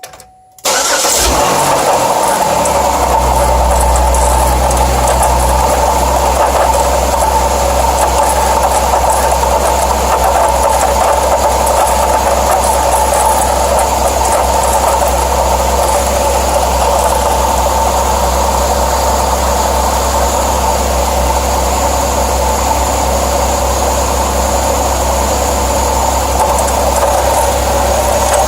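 Pontiac Grand Prix GT engine starting about half a second in, then idling steadily with a constant higher-pitched noise over the idle. The owner is asking what the under-hood noise is; the serpentine belt's idler pulley or tensioner is the suspect.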